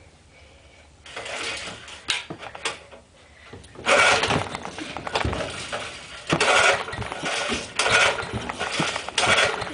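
Small 2 hp tiller engine being cold-cranked over and over: several short cranking bursts, loudest from about four seconds in, with no steady running between them. The engine is trying but not catching.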